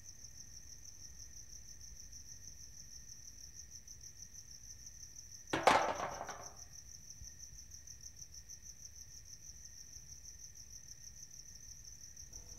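Crickets chirping steadily in a high, pulsing trill. About five and a half seconds in, a single sudden loud hit cuts through and rings away over about a second.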